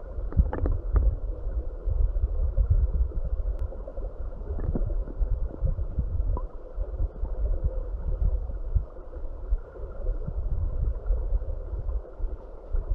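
Low, churning rumble and gurgle of a stony river's current heard underwater, through a submerged camera. There are a few sharp knocks in the first second.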